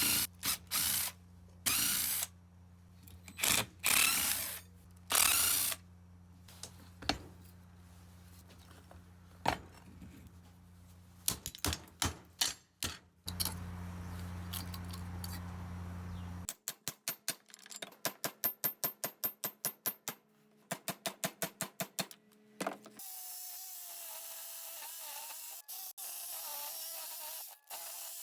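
Power tools and hand tools at work taking apart a dishwasher for scrap: several short loud bursts of a power drill, then two runs of rapid clicks at about four a second, then a steady whirring for the last few seconds.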